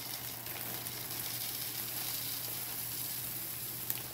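Dry rice cereal pouring from a plastic bag into a glass measuring cup: a steady rustling hiss of small crisp grains falling and landing on each other.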